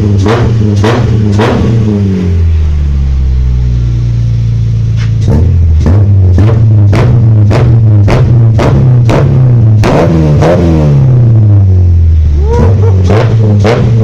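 Naturally aspirated VW Golf Mk3 engine being revved: the revs drop back toward idle about two seconds in, climb again around five seconds and hold, ease off around ten seconds, then rise once more near the end. Music with a steady beat about twice a second plays throughout.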